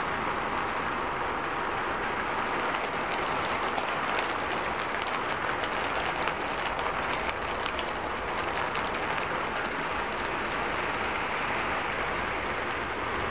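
Heavy rain falling: a steady hiss with scattered sharp ticks of drops, thickest for a few seconds in the middle.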